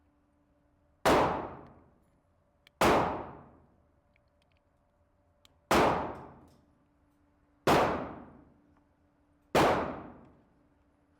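Five pistol shots fired one at a time, about two seconds apart, each a sharp crack with a long echoing decay. Faint clicks come just before two of the shots.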